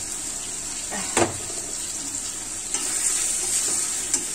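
Onion, garlic, tomato and green-chilli curry masala sizzling in a steel karahi while a steel spatula stirs and scrapes it. A sharp knock of the spatula against the pan comes about a second in, with lighter knocks later.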